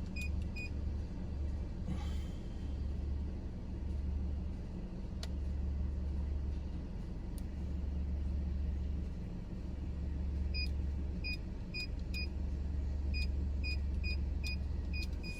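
Short electronic beeps of a gate keypad as a code is punched in: a few right at the start, then a long string of quick beeps in the last third. Under them, the steady low rumble of an idling vehicle heard from inside the cabin.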